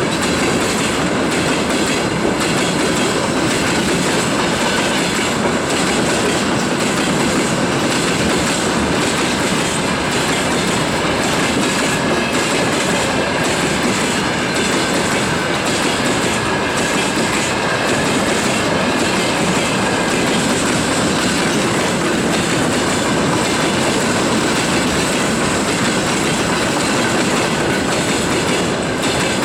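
Freight train wagons rolling past at a steady speed, their wheels clattering over the rail joints in a continuous loud rumble, with a faint high steady tone above it.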